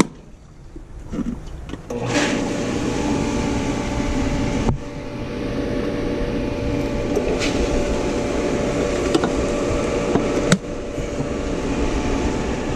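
Electric pool pump motor starting up about two seconds in and then running steadily with water moving through the plumbing. A few sharp clicks come later as the remote switch boxes' buttons are pressed.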